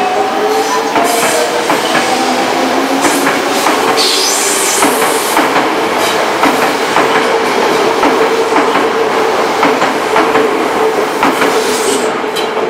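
Toei 5300-series electric train moving off along the platform, its Mitsubishi GTO-VVVF inverter whining in several tones that rise at first and then settle into one steady tone, over wheels clicking on the rail joints.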